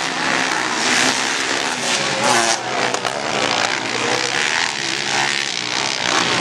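Racing ATV (quad) engines revving hard. More than one engine is heard at once, their pitch rising and dropping with throttle and gear changes, with a sharp rev-up and cut-off about two and a half seconds in.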